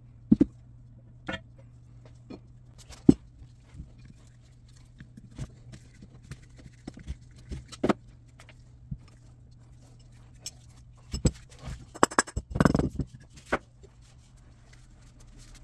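Scattered clinks and knocks of metal grinder parts and tools being handled and set down on a workbench, over a steady low hum. A denser run of handling noise comes about three quarters of the way through.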